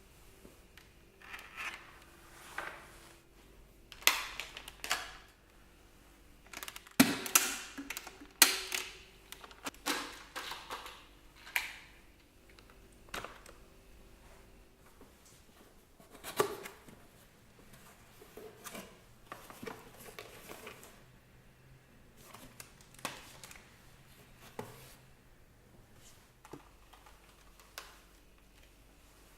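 Irregular sharp clicks, clatters and knocks of a Dyson V6 cordless vacuum's parts being handled and unclipped by hand during disassembly. They are loudest and most frequent in the first half.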